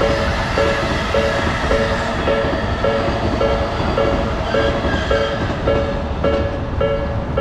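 Japanese level-crossing alarm bell (fumikiri) ringing its repeating two-note "kan-kan" about twice a second, over the rumble of a passing train.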